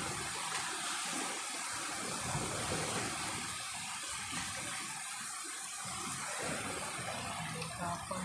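Shallow seawater sloshing and splashing as a hand and a scoop net are worked through it among the rocks, feeling for a fish.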